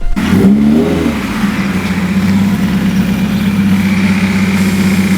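Subaru WRX turbocharged 2.0-litre flat-four, through an Invidia Q300 cat-back exhaust, firing up with a brief rev flare that falls back within about a second, then idling steadily.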